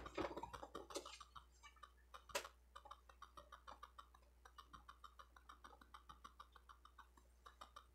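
Faint, quick light ticks, a few each second, with a sharper tap about two and a half seconds in: small craft items being handled and set down on a wooden lap tray.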